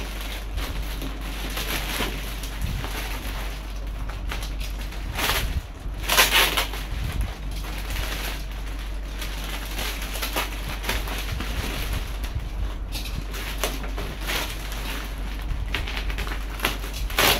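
Clear plastic wrapping crinkling and rustling as it is cut and pulled off a packed model-airplane part, with a louder burst of crackling about five to six seconds in.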